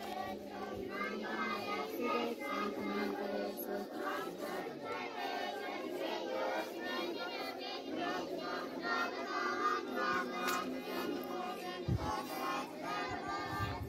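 A large group of schoolchildren singing together in chorus.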